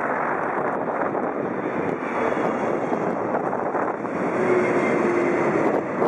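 Boeing 777 airliner passing low overhead on landing approach with its gear down: a dense, steady rush of jet engine and airframe noise that swells slightly about four seconds in as it goes over.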